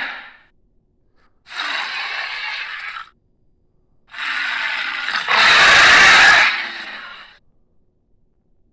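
Two Carnotaurus creature-call sound effects: a rasping call about a second and a half long, then a longer one that suddenly gets much louder partway through and trails off.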